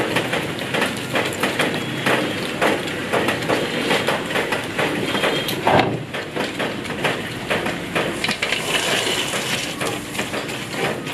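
Hot oil in a wok crackling and sizzling, a dense stream of small pops, just after fried lemongrass and herbs have been lifted out. One louder knock sounds about six seconds in.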